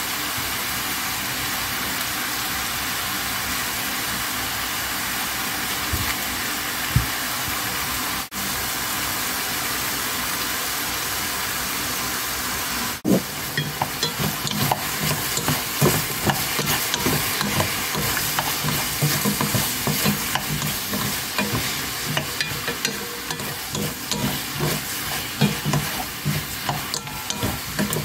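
King oyster mushrooms and vegetables sizzling steadily in a hot pan. About halfway through, a wooden spatula starts stirring and tossing them, with irregular scraping and knocking against the pan over the sizzle.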